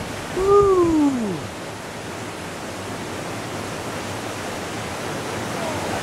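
Rushing whitewater of a class 5 rapid: a steady, even noise of churning, falling water.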